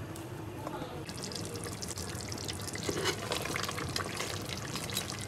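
A ladle scooping through thick, hot duck curry in a pot: wet sloshing and dripping over a steady fine crackle, with a fuller slosh about three seconds in.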